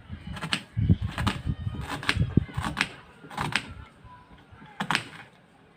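Knife cutting through an onion onto a chopping board: about six crisp cuts at an uneven pace.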